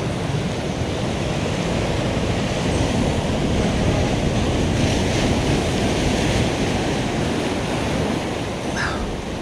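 Ocean surf breaking and washing around rocks at the foot of a sea cliff: a continuous rush of churning water, a little louder in the middle and easing near the end.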